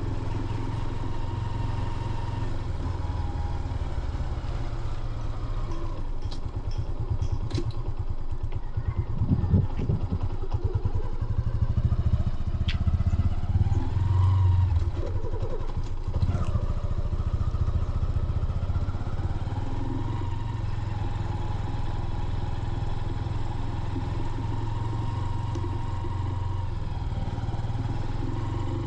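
Motor vehicle engine running while driving, a steady drone with road noise. It gets louder for several seconds about a third of the way in, and a few faint clicks come through.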